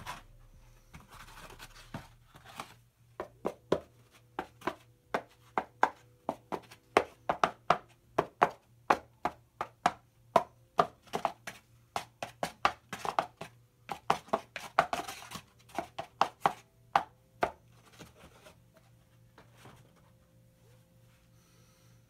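A molded-pulp cardboard egg carton being tapped and knocked by hand, a quick series of sharp taps at about two or three a second with rustling cardboard in between, stopping a little before the end.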